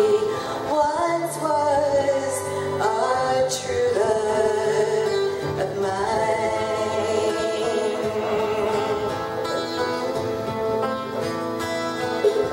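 A woman singing into a microphone while strumming an acoustic guitar, her voice holding long notes over the chords.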